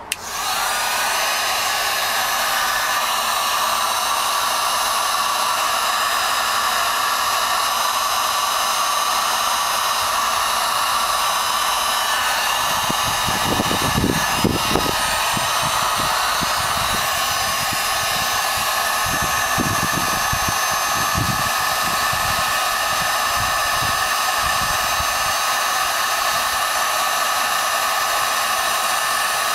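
Hair dryer switched on and running steadily: a rush of air with a fixed whine. About halfway through, low rumbling gusts come in as the nozzle swings close and its air hits the microphone.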